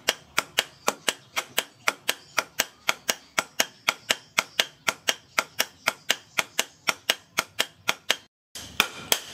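Hand hammer striking a red-hot steel sword blade on a cylindrical steel block anvil: sharp metallic blows in a fast, even rhythm of about four a second. The blows break off for a moment a little past eight seconds, then carry on.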